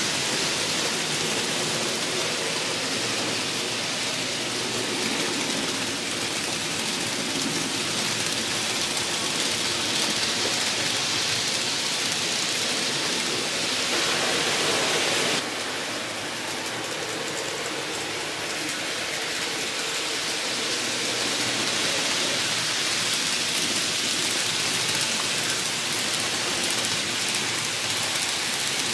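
N scale model trains running on the layout: a steady rush of small metal wheels rolling on the rails over a low motor hum. The sound changes abruptly to a slightly quieter rush about halfway through.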